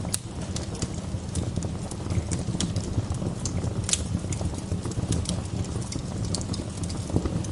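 Wood fire crackling, with irregular sharp pops and snaps, the loudest about four seconds in, over a steady low rumble.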